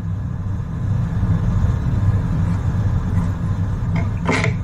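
A steady low mechanical hum runs throughout. Near the end come a few sharp clicks of a knife and squid pieces on a plastic cutting board.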